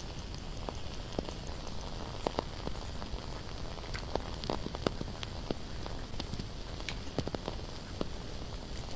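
Candle crackling: small irregular pops and clicks over a steady low hiss.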